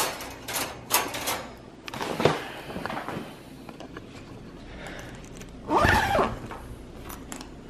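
Handling knocks and clicks around a wire dog crate in the first second and a half, with another knock at about two seconds. About six seconds in, the dog inside the crate whines once, rising then falling in pitch.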